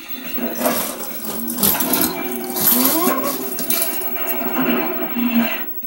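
Loose plastic Lego bricks clattering and rattling against each other as a small child's hands rummage through a trunk full of them.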